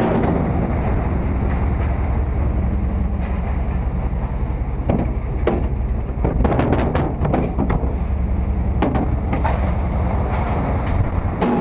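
A steady low engine drone with scattered knocks and rattles.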